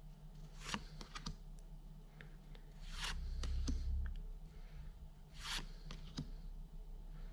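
Pokémon trading cards being flicked through one at a time, each card slid off the front of the hand-held stack with a short papery swish or click; several of these come a second or two apart, with a low rumble of handling in the middle.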